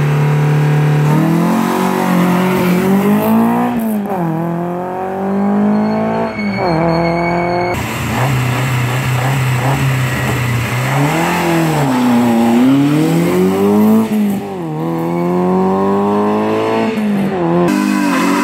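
Rally car engines at the start line, idling briefly and then revving hard and pulling away, the pitch climbing and dropping back several times as they accelerate through the gears. This happens more than once as successive cars are sent off.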